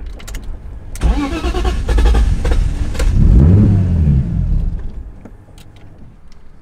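Turbocharged BMW M52 straight-six in an E30 running through a 3-inch stainless exhaust: a low rumble, then the engine picks up in pitch about a second in, revs up and down again, and dies away about five seconds in. It dies whenever it is given gas, the sign of an engine that still needs tuning.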